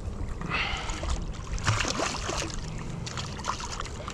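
A hooked sheepshead thrashing and splashing at the water's surface beside a kayak as it is netted, in irregular bursts about half a second in and again around two seconds in.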